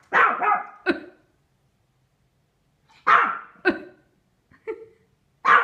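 Pomeranian barking: sharp barks mostly in pairs, a pause of nearly two seconds after the first pair, then a pair, a softer single bark and another bark at the end.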